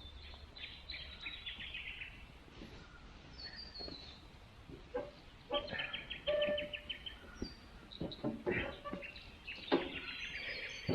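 Birds calling in three bouts of rapid, repeated high chirps.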